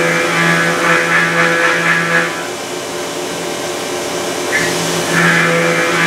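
CNC milling machine cutting a part under flood coolant: the cutter's steady pitched whine and the coolant spray. The cut eases off about two seconds in and comes back loud near the end, as the tool works pass after pass.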